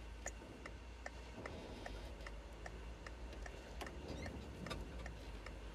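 Car turn-signal indicator ticking steadily, a little over two ticks a second, over the low hum of the engine and road inside the cabin.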